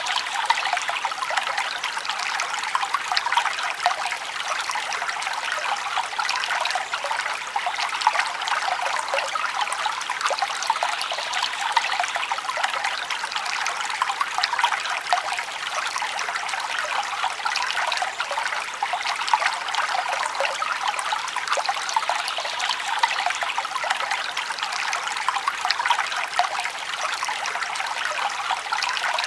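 Small forest stream running and trickling over stones, a steady, bright babble with fine splashes and little low rumble.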